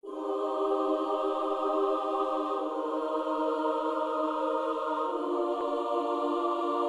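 Background music of sustained chords, moving to a new chord about every two and a half seconds.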